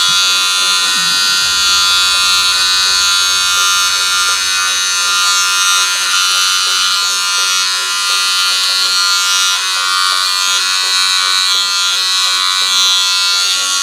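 Corded electric hair clipper buzzing steadily as it runs through a beard, trimming it.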